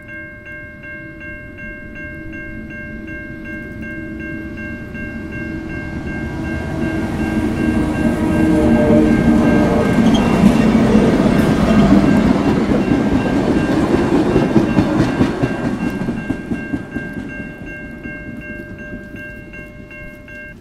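Diesel freight locomotive passing close by at speed, its engine and the wheels on the rails building to a peak about ten seconds in, then fading as the hauled cars roll past. A bell rings about four times a second throughout.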